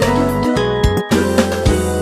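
Upbeat background music with a bass line, keyboard notes and percussive hits on the beat.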